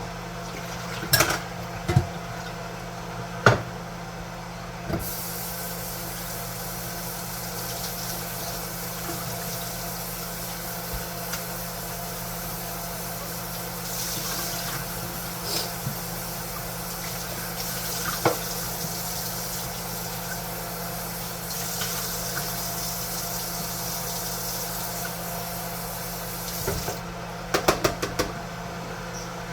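Kitchen tap running into a sink for about twenty seconds, starting about five seconds in, while cookware is rinsed out. There are sharp knocks of cookware before the water starts, one more partway through, and a quick rattle near the end.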